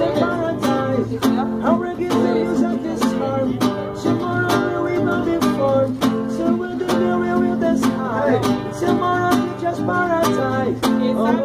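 Acoustic guitar strummed in a steady, even rhythm, its chords ringing on between strokes.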